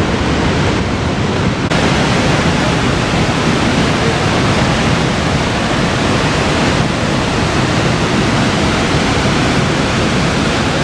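Steady roar of Niagara Falls: a dense, even rush of falling water.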